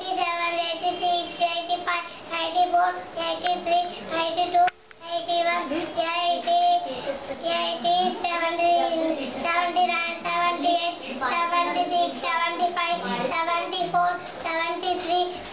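A young boy singing a song in phrases, with one short break about five seconds in.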